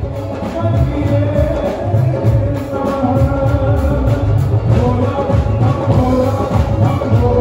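Live amplified devotional song: a male lead singer holding long notes over a band of drums, hand drums and keyboards, played loud through the stage sound system with a steady pulsing beat.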